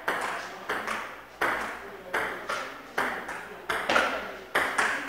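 Table tennis rally: the ball clicks sharply off paddles and the table about every half to three-quarters of a second, each click followed by a short echo from the room.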